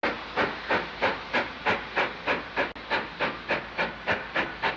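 Steam locomotive exhaust beating at a steady rate of about three chuffs a second, each beat a sharp puff of steam.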